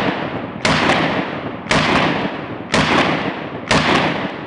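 Calico M950 9mm pistol firing: a shot about every second, each one ringing out in a long echo that fades into the next.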